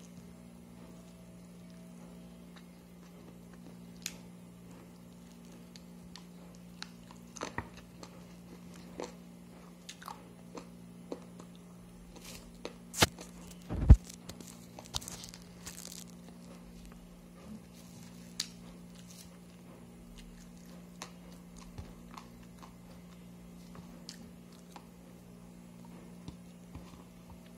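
Scattered small clicks and taps over a steady low hum, with two loud sharp knocks about halfway through.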